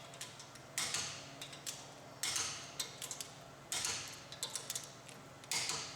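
Torque wrench clicking on the intensifier cylinder's cap screws, four times about a second and a half apart, each a short run of sharp ticks. The screws are being checked at their final torque of 90 foot-pounds. A faint steady hum lies underneath.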